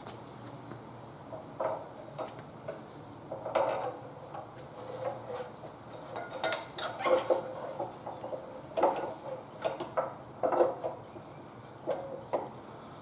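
Irregular metal clinks and knocks as a motorcycle's steel front axle is pushed through the fork legs, wheel spacers and hub.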